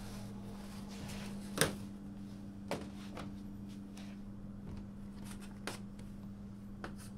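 A knife cutting laminated croissant dough into triangles on a stainless steel bench: a handful of short, sharp taps of the blade on the steel, the loudest about a second and a half in. A steady low hum runs underneath.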